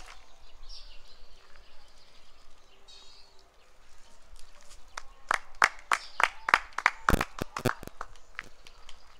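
A quick, uneven run of about a dozen sharp claps, around three or four a second, starting about five seconds in over faint outdoor background noise.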